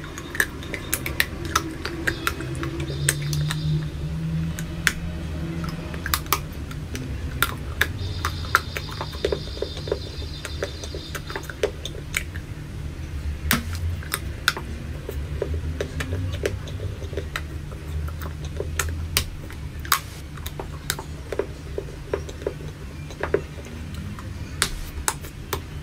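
Frozen white chocolate crunching and snapping as it is bitten and chewed, with many crisp cracks at irregular intervals over a low steady hum.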